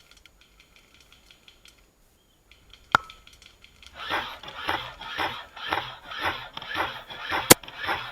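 Two sharp single cracks of an airsoft gun going off, one about three seconds in and one near the end. From about four seconds in there is a rhythmic rustling about twice a second, such as a player moving quickly.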